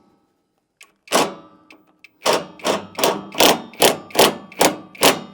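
Ratchet wrench tightening a nut on a lawn mower, one stroke about a second in, then a steady run of back-and-forth strokes about two and a half a second, each a short burst of ratchet clicks. This raises the front of the mower deck.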